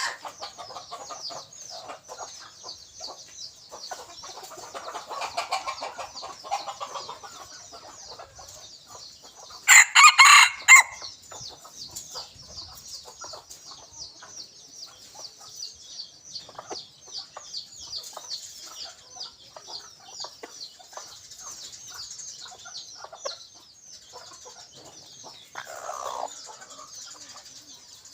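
A junglefowl rooster crows once loudly about ten seconds in, with softer clucking calls around it and another short call near the end, over a steady high-pitched rapid chirring.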